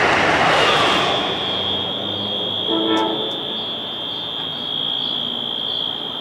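Wheelock AS fire alarm horns sounding a continuous, steady, high-pitched tone. The alarm stands out as a broad rush of vehicle noise fades away during the first second or so.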